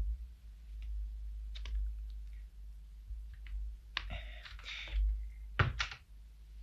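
Footsteps on a wooden floor and the clicks of a wooden door being opened, with a short rustle about four seconds in and a couple of sharper knocks near the end, over a steady low hum.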